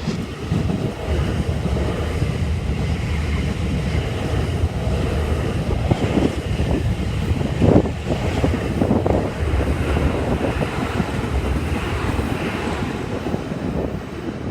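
Electric train running past at close range, a steady rumble with wind buffeting the microphone and a few louder gusts partway through.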